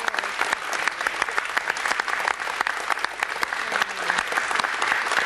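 Studio audience applauding, a dense, even clapping of many hands.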